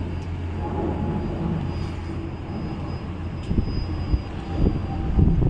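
Steady low rumble of a river cruise boat under way, with wind gusting on the microphone in the second half.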